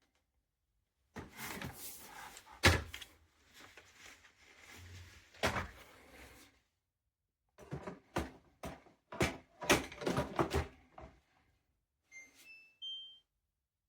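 Clicks, knocks and rustling as hard plastic parts are handled and fitted together, with one loud knock about three seconds in. Near the end comes a short run of electronic beeps, each at a different pitch, like an appliance's jingle.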